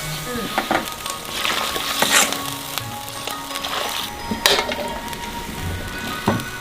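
Food sizzling as it stir-fries in a wok, a spatula scraping and tossing it in several separate strokes.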